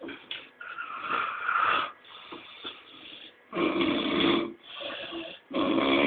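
Snoring: a long snore about every two seconds, three in all, with quieter breathing between them.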